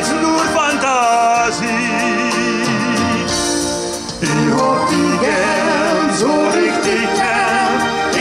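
A male and female duo sing a German Volksmusik song live into microphones over instrumental backing music.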